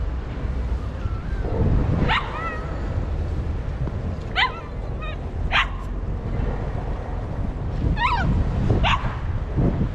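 Cavalier King Charles Spaniel yelping in sharp, high-pitched barks, about five cries each sliding down in pitch, with a faint whine before the first. She is protesting loudly out of fear of crossing the wooden-decked footbridge over the water.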